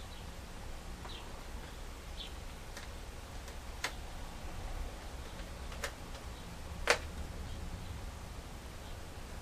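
A few sharp clicks and light taps of a Phillips screwdriver and small screws being worked into a laptop screen assembly, the loudest about seven seconds in, over a low steady hum.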